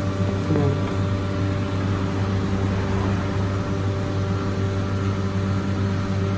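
Steady mechanical hum of running commercial kitchen equipment: a low, even drone with a faint rushing noise above it.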